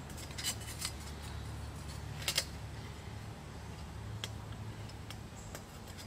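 Light metallic clicks and clinks of a thin perforated stainless-steel grill sheet being handled as its stakes are fitted into its holes, with a close pair of clinks a little over two seconds in.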